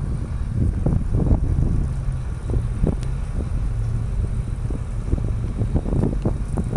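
A truck engine running steadily, a low drone, with wind buffeting the microphone.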